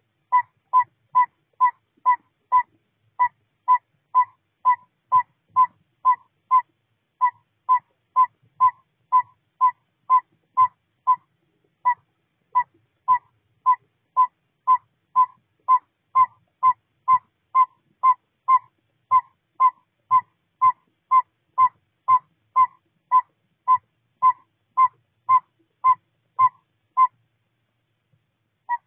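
Northern saw-whet owl giving its tooting advertising call: a long, steady series of short, single-pitched toots, about two a second, with a break near the end before it starts again.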